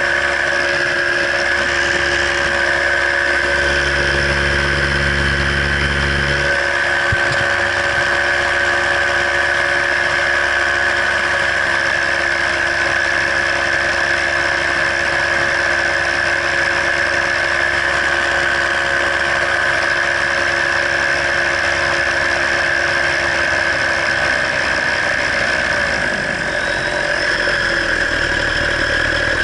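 Paramotor engine running steadily in flight, its note falling noticeably a little before the end.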